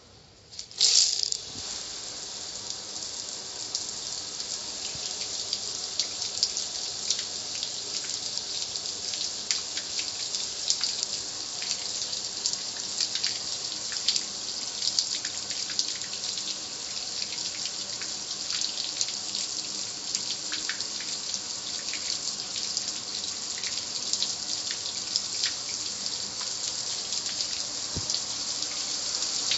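Car wash water spray coming on suddenly about a second in, then running steadily as a hiss with many small spatters.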